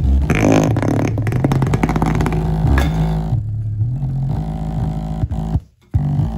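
Aiwa 5.25-inch woofer in a small cardboard box playing a bass line of shifting low notes, with the box vibrating and buzzing along. The sound cuts out for a moment near the end.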